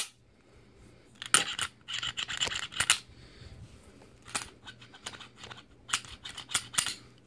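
Glock 26 pistol's slide and action worked by hand, giving a series of sharp metallic clicks with short sliding scrapes between them. There is no squeak: the action is freshly lubricated with Froglube and now closes fully.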